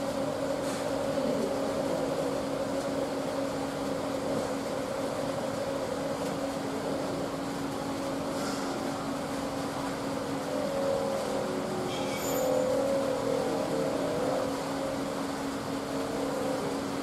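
A steady mechanical hum with a constant low tone, and a few faint handling clicks around the middle.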